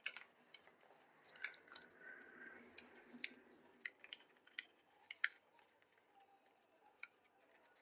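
Faint, scattered crinkles and ticks of a folded sheet of coloured paper being pressed and shaped by fingers, with a soft rustle about two seconds in.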